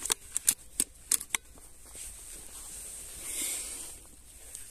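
A quick, irregular run of about seven sharp clicks and taps in the first second and a half, then a brief soft hiss about three seconds in: handling noise from the scoped rifle and the camera on its eyepiece as the aim is moved.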